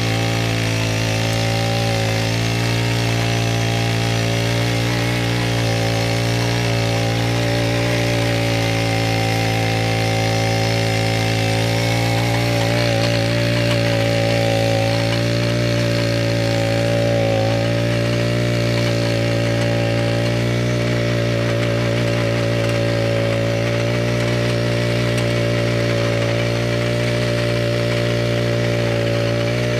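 Small petrol mini-tiller engine running steadily under load as the tines churn garden soil, holding a near-constant speed with small wavers; its carburettor has just been repaired.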